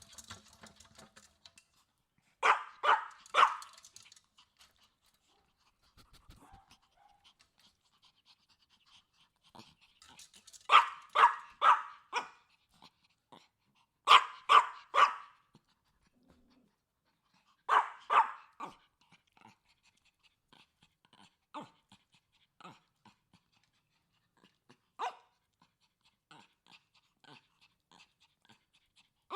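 Chihuahua barking in short bursts of sharp, high yaps, three or four at a time, with panting between. Later it gives only a few quieter single yaps and faint clicks.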